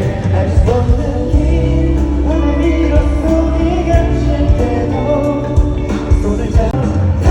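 K-pop song performed live: singing over a loud full backing track with a steady beat and heavy bass.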